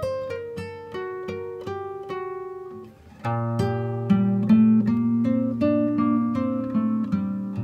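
Background music on guitar: a run of single picked notes, then a louder, fuller passage with held low notes under the plucking from about three seconds in.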